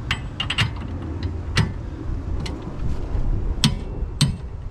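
Torque wrench with a 15/16 deep-well socket ratcheting in a few scattered sharp clicks while tightening a hitch jam nut to 120 foot-pounds. The two sharpest clicks come near the end.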